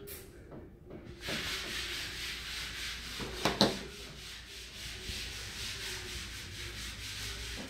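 Steady noise of a power drill running in the background, setting in about a second in. One sharp knock stands out about halfway through.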